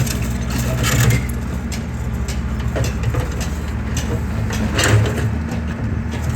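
Excavator's diesel engine running steadily, with scattered cracks and knocks of concrete being crushed, a little louder about a second in and again about five seconds in.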